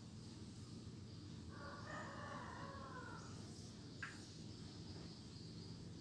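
Faint drawn-out animal call lasting under two seconds, over a low steady hum, with a single soft click about four seconds in.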